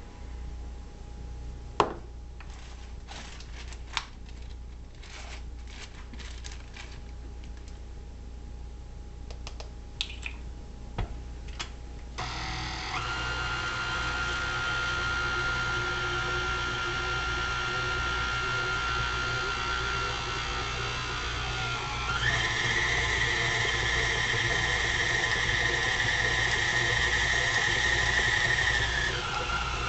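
A few sharp clicks and knocks, then the KitchenAid K45 stand mixer's motor starts partway through and runs with a steady whine. The whine steps up in pitch and gets louder as the mixer is switched to a higher speed, then drops back down near the end.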